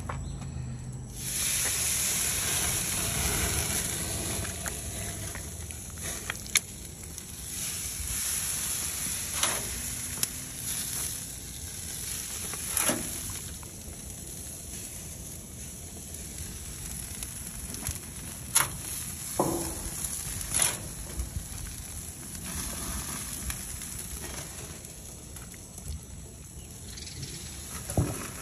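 Steady sizzle from a hot barbecue grill, broken now and then by a few sharp clicks.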